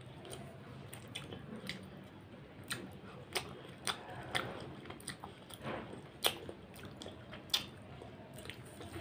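Close-up eating by hand: fingers squishing rice into wet chicken curry, and wet chewing with sharp, irregular mouth clicks and smacks, the loudest a little after the middle.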